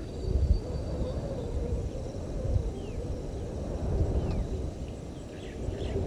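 Outdoor bush ambience at dusk: a low rumble with a faint wavering drone, and a few short, falling chirps from small animals such as birds or insects.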